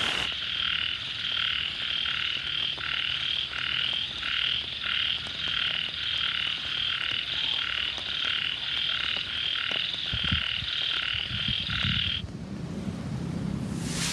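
Frogs calling in a steady, rapid rhythm of about three calls a second, which cut off suddenly near the end; a low rumble comes in over the last few seconds.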